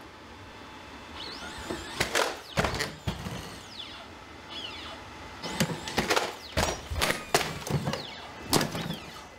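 Repeated heavy thumps and knocks of an Atlas humanoid robot's feet landing on wooden boxes and platforms, a cluster about two seconds in and a faster run of impacts in the second half, with a few short squeaks in between.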